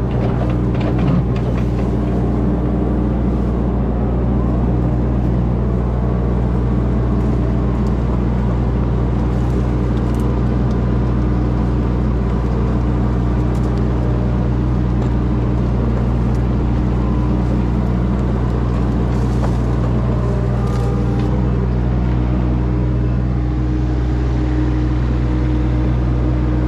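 Kubota U25 mini excavator's diesel engine running steadily at a constant speed, with a few faint clicks and knocks over it.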